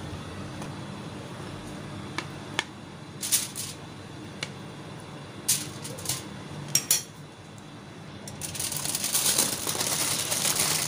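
Metal tongs clicking and tapping against a plate and aluminium foil as pieces of fried beef are moved, a handful of separate sharp taps. Past the two-thirds mark this gives way to aluminium foil crinkling steadily as it is folded and wrapped around the meat.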